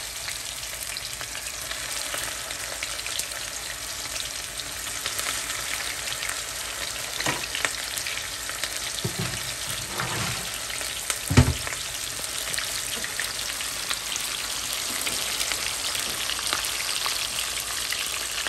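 Corn-tortilla tacos deep frying in very hot oil, which is already smoking: a steady crackling sizzle. A few dull thumps come around the middle, the loudest about eleven seconds in.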